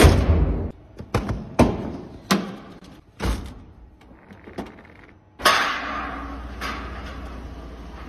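Mercedes-Benz W140 S-Class doors and boot lid being shut, a series of solid thuds about a second apart, the first the loudest. About five seconds in a louder burst settles into a steady low rumble: the S500's V8 engine running.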